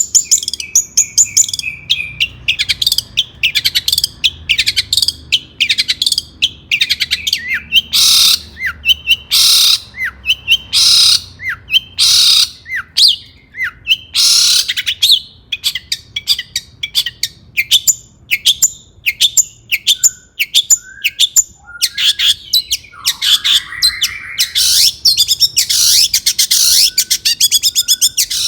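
Long-tailed shrike singing loudly: a fast, varied stream of sharp chirps and whistled notes, broken by harsh rasping calls about every one and a half seconds through the middle.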